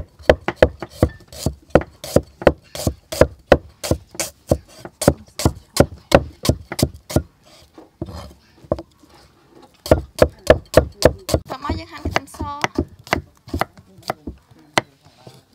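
A cleaver chopping shallots and garlic on a thick round wooden chopping block: quick, sharp knocks about four a second, with a pause of about two seconds past the middle before the chopping starts again.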